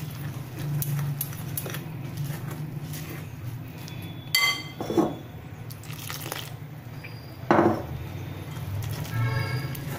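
Metal spoon stirring thick gram-flour batter in a glass bowl, scraping and clinking against the glass, with a few louder clinks.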